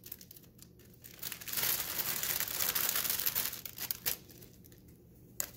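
Clear plastic poly bag crinkling as a knitted headband is pulled out of it, for about two and a half seconds, followed by a couple of short clicks.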